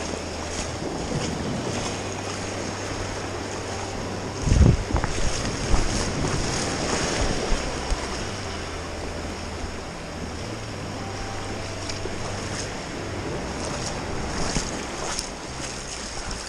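Sea waves washing, with wind buffeting the microphone and a strong gust about four and a half seconds in.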